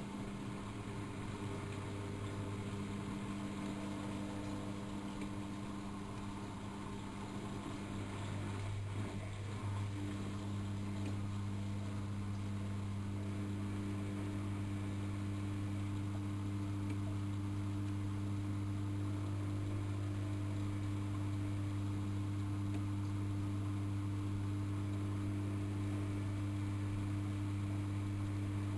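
AEG Electrolux Lavamat L6461 washing machine running through a 95 °C boil wash with a steady electrical hum; about nine seconds in the hum grows slightly louder and stays steady.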